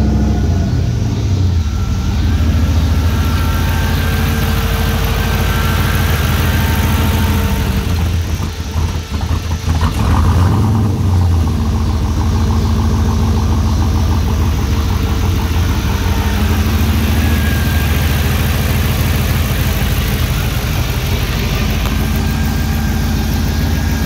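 Turbocharged 5.3-litre GM V8 idling steadily just after start-up, with a fairly stock-sounding idle. About ten seconds in, the engine speed briefly rises and falls.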